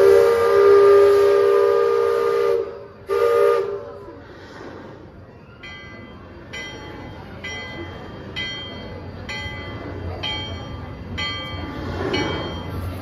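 Liberty Belle riverboat's steam whistle sounding a long blast of several tones together, then a short second blast about three seconds in. A bell follows, struck about once a second, roughly seven times.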